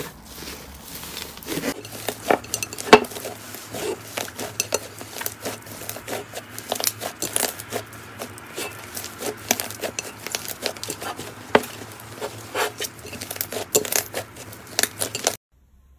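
Hands squishing, folding and pressing fluffy slime, giving a dense run of small crackles, pops and clicks. It cuts off suddenly near the end.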